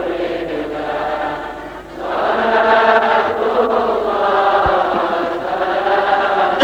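A congregation chanting an Arabic devotional song (shalawat) together in unison, in long held phrases, with a short breath-pause about two seconds in.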